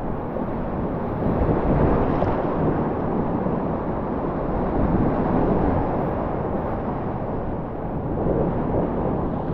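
Rushing whitewater of a river rapid: a steady, dense noise of churning water that swells and eases in loudness.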